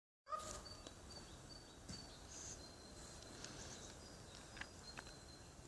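Faint outdoor field ambience: a steady low hiss with thin, high, repeated chirps and a few small clicks.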